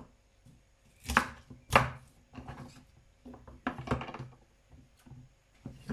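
A kitchen knife chopping food on a cutting board in a few separate sharp strokes, the two loudest a little past one second and just before two seconds in, then a quicker cluster about four seconds in.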